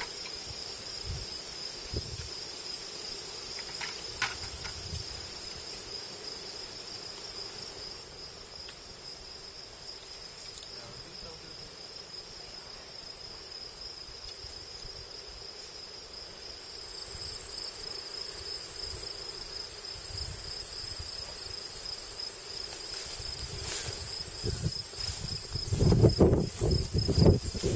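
A steady, high-pitched insect trill from a chorus of field insects, cricket-like, runs without a break. In the last few seconds louder rustling and knocks come close to the microphone.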